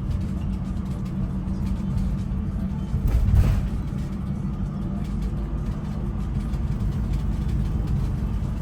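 Steady engine and road rumble inside a moving van, with a brief louder swell about three seconds in.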